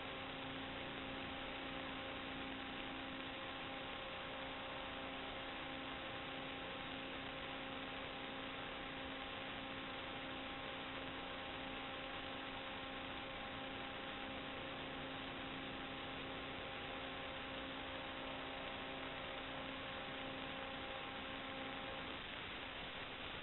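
Steady hiss and hum of the audio track of an analog FPV video receiver's DVR recording, with a faint steady tone and its overtones that stop near the end.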